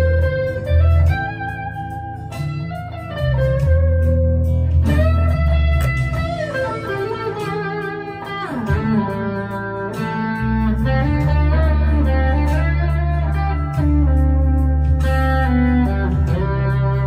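Harley Benton ST-Modern HSS electric guitar played through an overdrive pedal: a lead line of held notes with string bends, over low notes sustained underneath.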